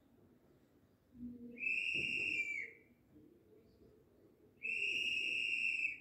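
Two long, steady, high-pitched whistles, each about a second long and about three seconds apart; the first dips slightly in pitch as it ends.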